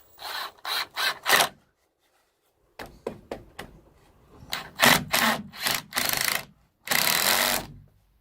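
Tool working on wooden boards: a string of short rasping bursts, a brief full silence, then more bursts ending in one longer burst of about a second.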